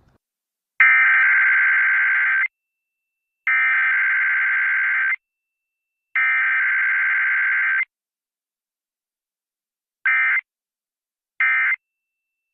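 Emergency Alert System SAME data tones: three long bursts of buzzy two-tone digital data about a second apart, then three short end-of-message bursts at the same spacing. This is the coded header and end-of-message signal that frames an EAS or weather-radio alert.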